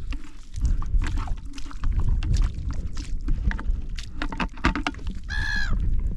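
Water splashing and sloshing as a bucket is dipped and filled in creek shallows, with irregular clicks and heavy wind rumble on the microphone. A brief high-pitched call sounds about five seconds in.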